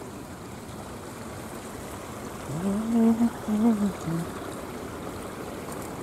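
Steady noise of water trickling through shallow rock pools. About two and a half seconds in, a person's voice calls out briefly, louder than the water, rising then breaking off.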